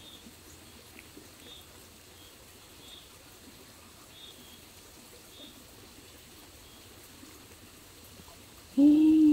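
Two Pomeranian dogs quietly chewing and licking food from their bowls, with faint high chirps repeating about once a second behind them. Near the end a person's voice comes in with a loud held hum.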